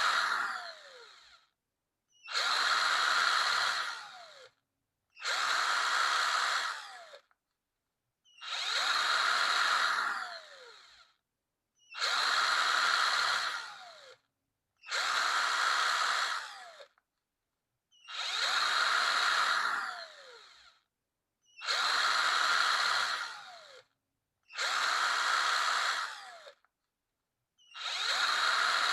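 Power drill triggered in repeated short runs, about one every three seconds. Each run spins up, holds a steady whir for about two seconds, then winds down with a falling whine as the trigger is released.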